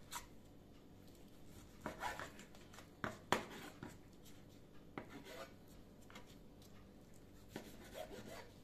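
Knife slicing raw chicken breast on a cutting board: a handful of faint, separate taps of the blade and the meat against the board, with soft handling sounds between them.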